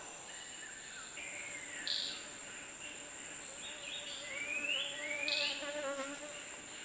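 Rainforest ambience: a steady high-pitched insect drone, with a few short rising whistled calls in the middle.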